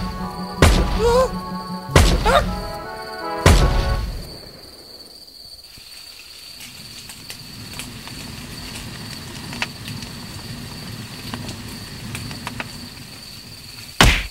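Film soundtrack with loud bangs: four sharp bangs in the first four seconds, some trailed by a short rising wail, over music. Then quieter music with a thin steady high whine, and one more loud bang near the end.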